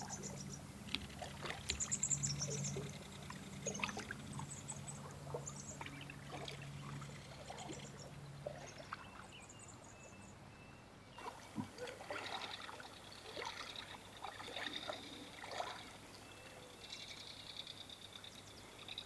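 Faint trickling and splashing of river water, with small clicks and short high bird chirps scattered through it.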